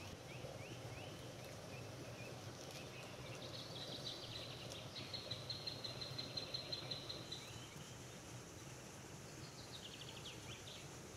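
Faint birdsong over a low steady background hum: a few short rising chirps, then a rapid high trill lasting several seconds, and another short trill near the end.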